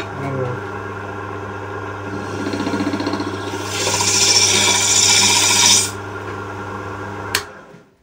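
Hook tool cutting the end grain inside a small turned wooden cup over a lathe's steady motor hum, a hissing scrape of shavings loudest about four to six seconds in. Near the end a click, and the lathe's hum dies away.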